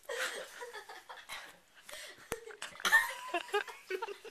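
Young men laughing in short breathy bursts, with a higher squealing laugh about three seconds in and a single sharp click a little before it.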